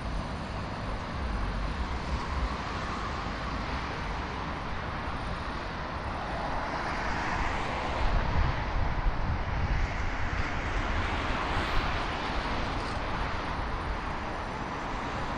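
Busy city street traffic: a steady rush of passing vehicles that swells for a few seconds about halfway through as something louder goes by.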